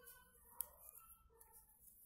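Near silence broken by one light click of knitting needles touching, a little over half a second in.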